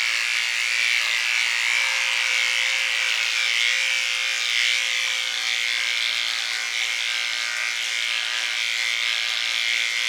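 Electric hair clippers buzzing steadily as they trim a dog's hair.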